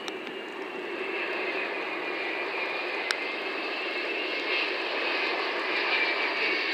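Four-engine Airbus A380 jetliner on landing approach: steady jet engine noise with a high whine, growing louder as the aircraft comes closer.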